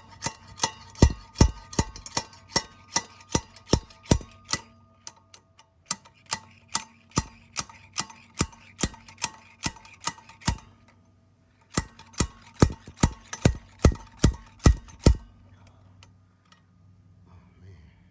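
Small sledgehammer striking steel in steady, ringing blows, about two or three a second, in three runs with short pauses between them: hammering to drive the stuck pilot bearing race out of the crankshaft.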